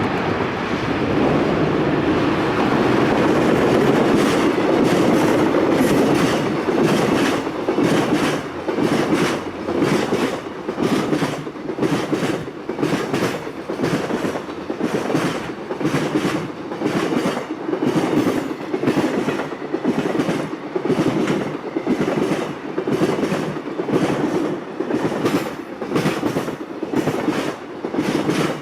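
Freight train passing on jointed track: a steady rumble for the first several seconds, then the wagons' wheels clattering over the rail joints in an even, repeating clickety-clack.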